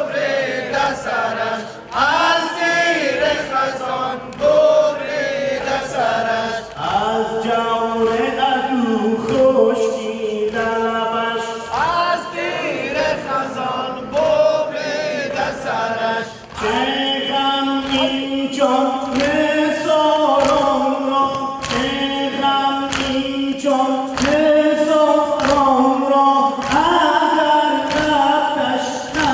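Shia noha, a mourning lament for Ashura, chanted by a male reciter with a large crowd of men singing along in unison. Sharp, regular slaps of chest-beating (matam) mark the beat, about three every two seconds.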